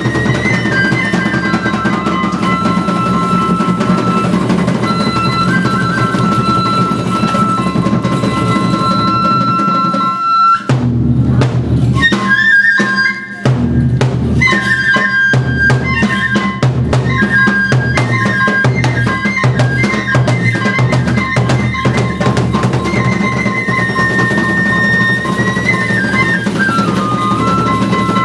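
Iwato kagura music: a bamboo transverse flute plays a held melody that moves in steps over steady taiko drumming. About ten seconds in, the flute drops out for roughly three seconds while the drum strokes continue, then the melody returns.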